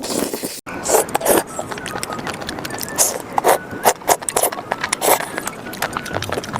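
Close-miked eating sounds: irregular wet clicks and smacks of chewing, over a steady hiss.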